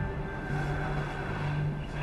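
Soft background music with long held low notes.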